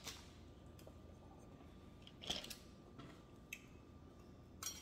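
Faint eating sounds: a few soft crunches and clicks as fried chicken is pulled apart and chewed, the loudest a little over two seconds in.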